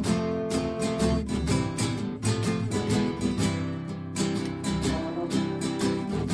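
Acoustic guitar strummed in a steady, even rhythm, playing a song live and unplugged.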